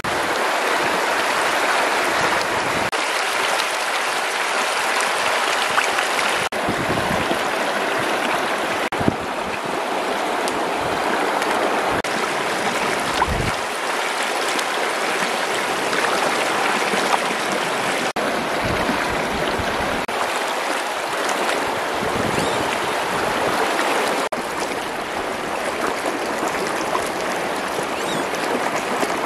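Shallow, fast-flowing river rushing over rocks: a steady rush of running water.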